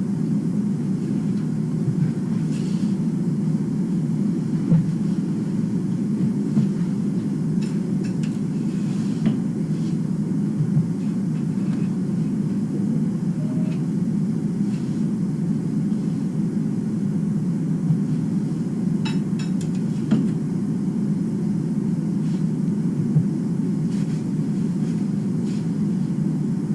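A steady low rumble, with a few faint short taps now and then.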